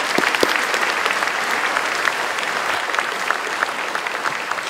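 Audience applauding: many people clapping together, easing off gradually toward the end.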